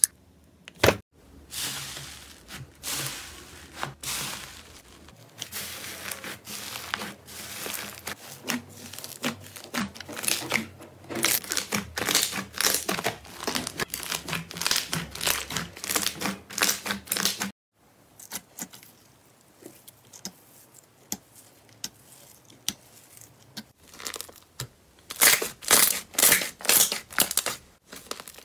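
Slime being squeezed, kneaded and poked by hand: dense crackling and popping as trapped air bubbles are squashed out. The sound drops to a quieter squish about two-thirds in, then comes back as a run of loud pops near the end.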